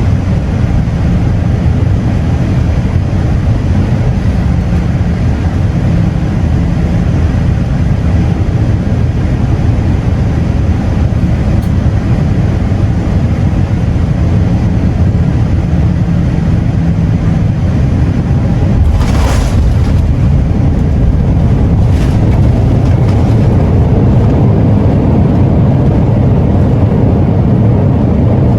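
Steady roar of airflow and engines heard inside the cabin of a Boeing 787-8 on its landing approach. A brief burst of noise comes about two-thirds of the way through, and the roar grows a little louder after it.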